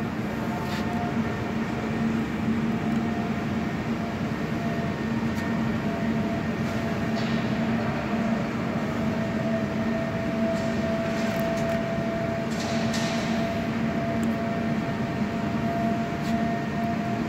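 Steady hum of an idling Finn Power A5-20 CNC turret punch press that is switched on, with a low tone and a fainter higher whine held throughout and no punching strokes. A few faint brief rustles come and go.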